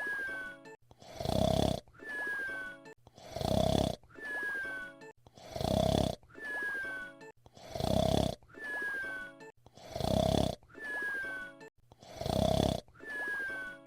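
Cartoon whistle-snoring, voice-acted as Fred Flintstone. A loud snoring breath is followed each time by a thin whistle that falls in pitch, and the cycle repeats evenly about every two seconds, six times.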